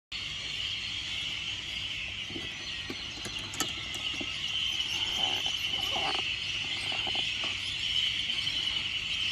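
Steady high-pitched chorus of insects, with a few light knocks and clinks of a golf bag and clubs being handled.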